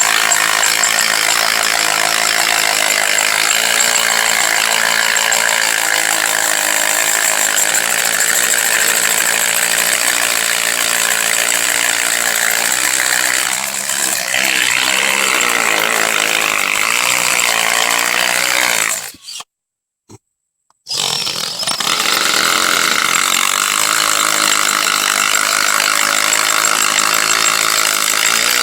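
A household drill on its hammer setting boring a 3/8-inch masonry bit into concrete, a loud steady hammering whir. It stops for about two seconds past the middle and then starts again. The hole is barely advancing, which the owner suspects means the bit has hit rebar.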